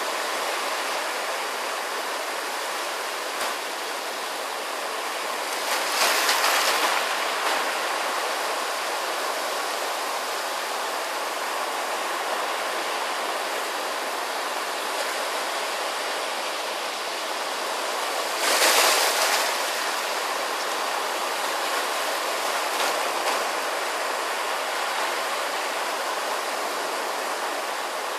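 Surf washing in and out over a beach of rounded stones, a steady rush of water with two louder surges, about six seconds in and again near nineteen seconds.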